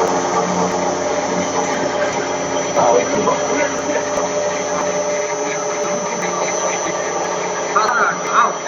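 Screw rotor milling machine running with a steady hum made of several tones.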